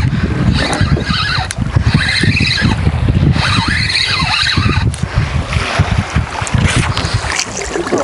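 Wind rumbling on the microphone and waves slapping against a small boat's hull, with a spinning reel being wound as a small zander is reeled in.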